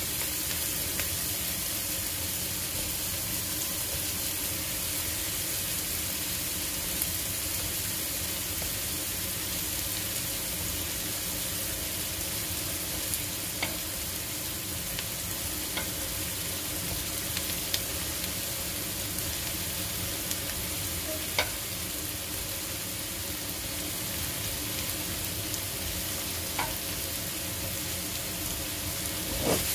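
Diced onion frying in olive oil in a pan, a steady sizzle, with a few sharp ticks scattered through it as raw beef meatballs are set into the pan.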